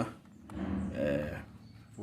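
A man's voice making one drawn-out, low murmur, like a hesitating 'hmm', starting about half a second in and lasting about a second.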